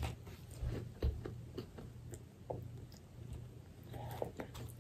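Faint, scattered mouth clicks and smacks of eating, from chewing and handling fried chicken and biscuits, over a low steady hum.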